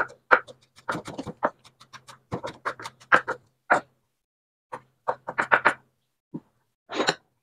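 Kitchen knife chopping vegetables on a cutting board: quick runs of sharp taps with short pauses between them.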